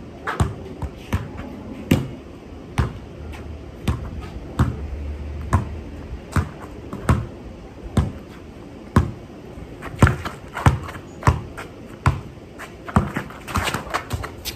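Basketball bounced on concrete: sharp bounces about once a second, coming faster near the end.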